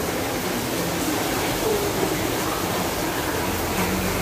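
Steady rushing background noise with faint, indistinct voices underneath.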